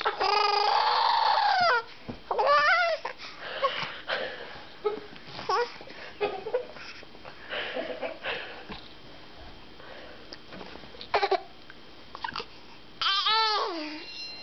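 A baby vocalizing: a loud drawn-out wail for about the first two seconds, then scattered short squeals and babbling, with a quick run of wavering squeals near the end.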